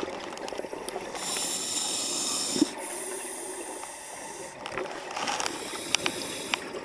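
Scuba diver breathing through a regulator underwater: three long breaths with bubbles, each about a second and a half, with a knock and a few small clicks in between.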